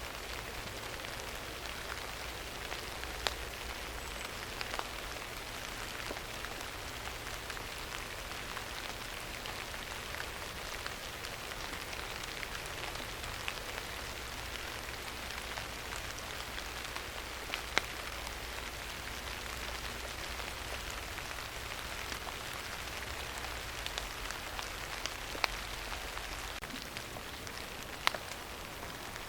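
Steady rain falling, an even hiss, with a few sharp, louder ticks scattered through it.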